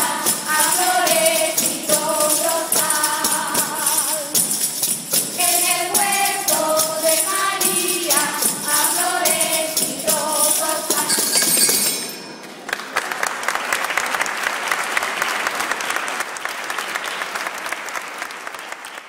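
Children's voices singing together in unison, accompanied by jingling panderetas (frame drums with jingles) and the clink of brass mortars struck with pestles. About twelve seconds in the song ends and applause follows, fading out near the end.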